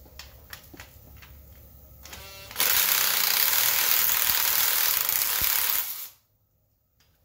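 Cordless impact driver hammering for about three and a half seconds, then stopping suddenly, as it backs a bolt out on the motorcycle. A few light clicks come before it while the socket is fitted.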